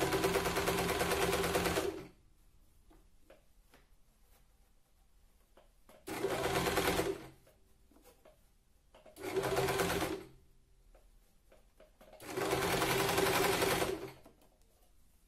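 HomeDecor 1015 electric sewing machine stitching a seam in four short runs. It is running at the start and stops about two seconds in, then starts and stops three more times, with brief quiet pauses between runs while the fabric is repositioned.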